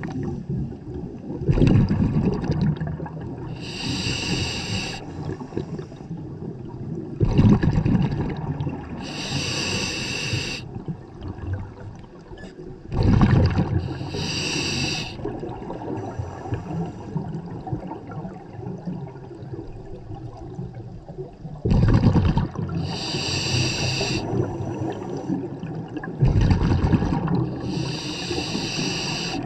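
Scuba diver breathing through a regulator underwater: a hissing inhale through the demand valve, then a rumbling burst of exhaled bubbles. The cycle repeats about every five seconds, five breaths in all.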